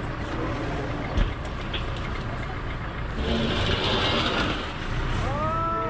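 Tractor engine running steadily. A single thump comes about a second in, a hiss a few seconds in, and a short rising-and-falling whine near the end.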